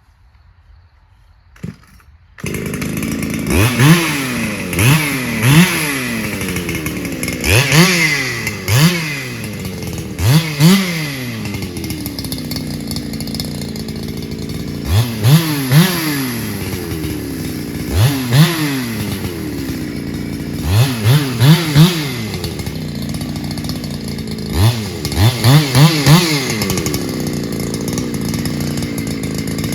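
A Solo 681 two-stroke chainsaw starts about two seconds in, then idles with repeated quick throttle blips: the revs rise and fall back, often two or three in a row.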